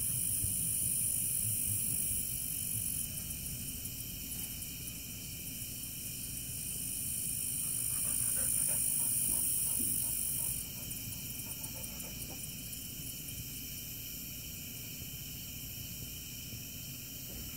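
Night insect chorus: a steady high-pitched chirring that swells in two stretches, near the start and again in the middle, with faint distant animal calls in the middle.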